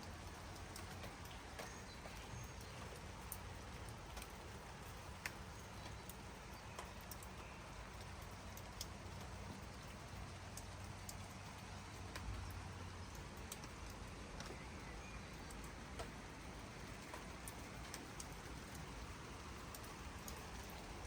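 Steady light rain, an even hiss with scattered drops ticking irregularly on leaves and hard surfaces, and faint occasional bird chirps.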